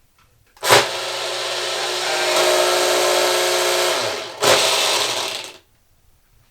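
Chamberlain LiftMaster garage door opener motor switching on with a click and humming steadily. It runs for about three seconds, winds down, then starts again briefly. The motor runs but the door doesn't rise: the sign of a broken drive coupler, which the owner finds busted.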